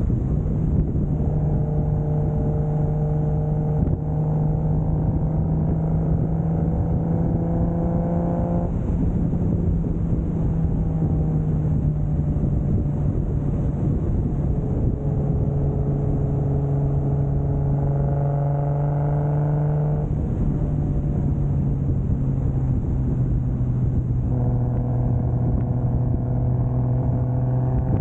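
1995 Toyota Soarer's single-turbo 2JZ inline-six under way over steady road noise, the revs climbing slowly three times with the engine note dropping away in between.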